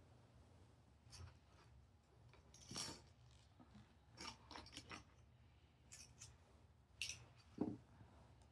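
Plastic building-block pieces clicking and rubbing together as flower petals are fitted onto a build: faint, scattered clicks and short scrapes, with a slightly duller knock near the end.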